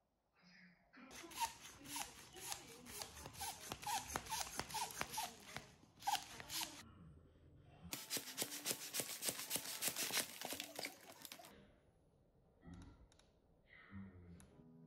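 Crinkling foil (Mylar) letter balloon being inflated with a small plastic hand pump: two long stretches of rapid crackling and rustling, the second stopping suddenly about three quarters of the way through.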